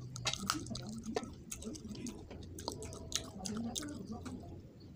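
Close-up chewing of fish head and rice curry, with many short wet mouth clicks and smacks.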